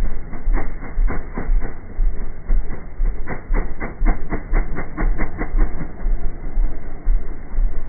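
ATV engine running under load while the four-wheeler rides on its rear wheels, with a rhythmic chugging of about four to five knocks a second in two runs, near the start and through the middle. The recording is muffled, with no high end.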